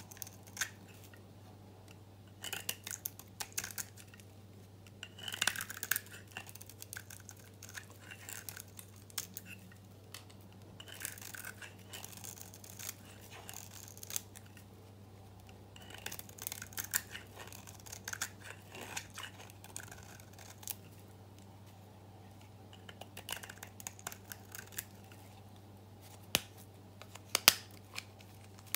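Utility knife blade shaving dry, green-painted soap: crisp crackling scrapes come in short runs every few seconds as curls break off the bar, with two sharper snaps near the end.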